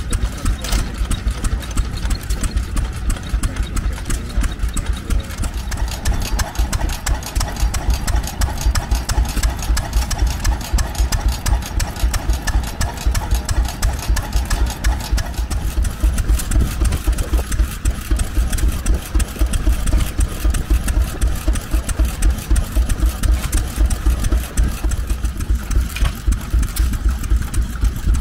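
Vintage single-cylinder open-flywheel stationary engines running steadily, with a fast, regular exhaust beat.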